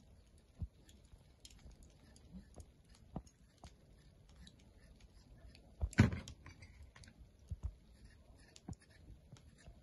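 Small knife cutting and scraping the skin off a potato: a scattered string of soft clicks and scrapes, with one louder thump about six seconds in.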